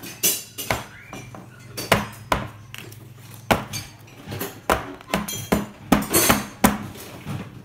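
Metal baking pan knocking and clattering against a wooden tabletop as it is handled, a run of irregular sharp knocks.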